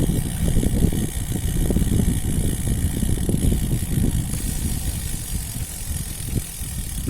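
Wind buffeting the microphone: a rough, uneven low rumble that eases a little in the second half.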